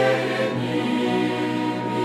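Youth choir singing a hymn, holding long sustained chords.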